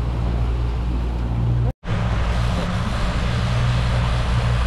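Boat engine running steadily under way, a constant low drone with a wash of rushing wind and water over it. The sound cuts out completely for an instant a little under two seconds in, then resumes.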